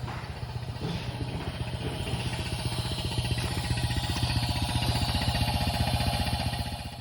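An engine running at a steady speed with an even, fast pulse, growing a little louder over the seconds.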